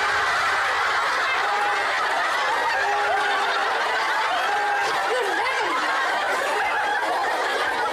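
Studio audience of women laughing loudly and without a break, many voices overlapping.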